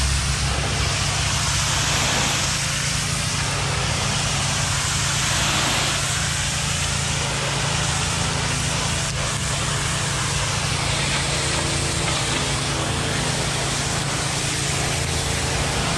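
A pressure washer's petrol engine running steadily, with the hiss of the high-pressure water jet spraying the brick.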